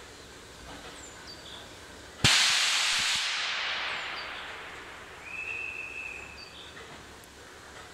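Narrow-gauge steam locomotive suddenly releasing steam: a loud hiss that starts abruptly a little over two seconds in and fades away over the next few seconds.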